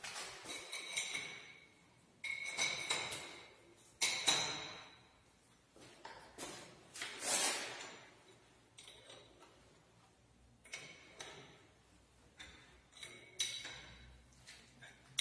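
Steel wrench and bolts clinking against the milling machine's rotary table while it is being bolted down: a string of sharp, irregularly spaced metallic clinks, each with a short ringing tone.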